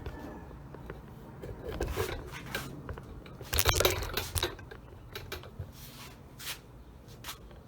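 Handling noises from a workbench: scattered clicks and light knocks of small hard parts, with a louder clatter about three and a half seconds in.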